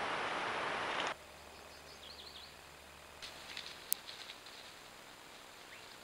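Trail-camera audio in forest: a loud, steady rushing hiss cuts off abruptly about a second in. Quiet woodland ambience follows, with a few quick bird chirps and a cluster of sharp clicks, one of them loud, near the middle.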